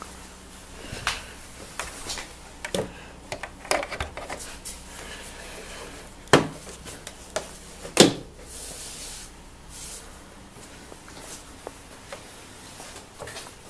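Hard plastic clicks and knocks of a Ford Focus MK2 tail-light unit being handled and fitted back into its opening in the car body, with two sharp loud clicks about six and eight seconds in.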